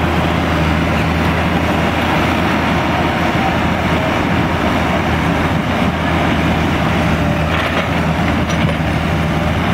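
Cat 304C CR mini excavator's diesel engine running steadily under load as it digs asphalt out of a dump truck bed, a constant low drone.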